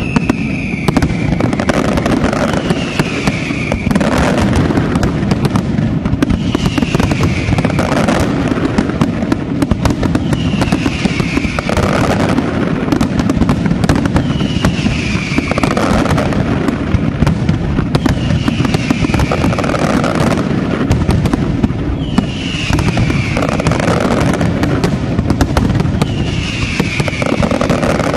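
Large aerial fireworks display at full intensity: a dense, continuous barrage of bangs and crackling shell bursts. A short falling whistle-like tone recurs about every two seconds over the barrage.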